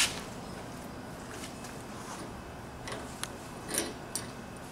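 A few faint clicks and light metallic taps as a hex key turns the bolt holding the arm of a wheel balancer, over low room noise.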